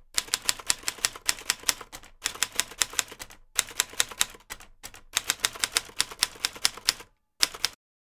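Typewriter keys clacking rapidly, about five strokes a second, in four runs with short pauses between them and a brief last run near the end.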